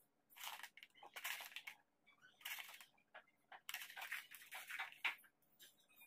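Dry scraping and rustling of hand work in three bursts, the longest near the end.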